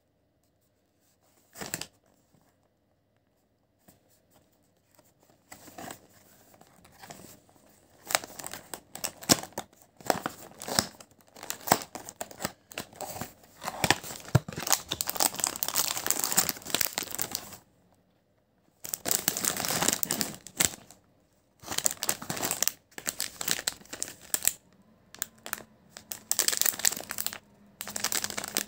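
A cardboard box of McVitie's Jaffa Jonuts being torn open by hand, then an individually wrapped plastic-film snack packet crinkling as it is handled. The sounds come in irregular bursts with short pauses.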